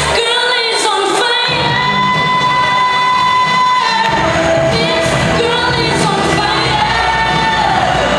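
A girl singing solo into a microphone over backing music, holding one long note for about two seconds before going on to the next phrase.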